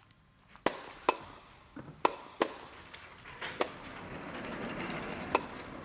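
About six sharp, irregularly spaced knocks, with a soft rustling haze that swells toward the end.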